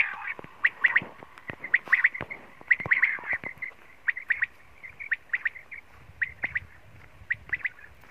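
Quail calling over and over: short, sharp high notes in quick groups of two or three, one group after another.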